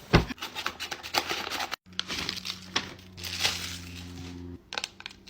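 Crinkling and rustling handling noise with many small clicks. A steady low hum runs through the middle stretch.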